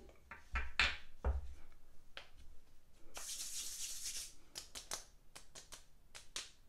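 Makeup items being handled on a counter: a few knocks in the first second or so, a hissing rustle about three seconds in, then a quick run of light clicks.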